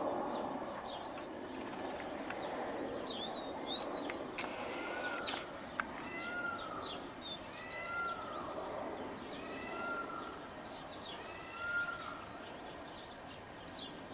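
Wild birds calling: a series of about six clear, arching call notes roughly a second apart starting about five seconds in, with scattered short higher chirps over steady outdoor background noise.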